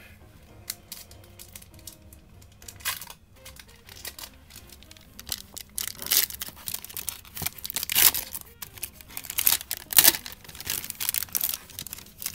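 Foil wrapper of a 1991 Upper Deck basketball card pack being torn open and crinkled by hand. The crinkling is light at first, then turns into a run of sharp crackling tears from about six seconds in, loudest around eight and ten seconds.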